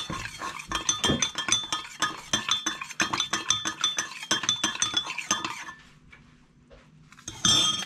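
Metal spoon stirring in a Pyrex glass measuring jug, clinking rapidly against the glass as sugar dissolves in warm water. The clinking stops about six seconds in, and a brief louder clatter follows near the end.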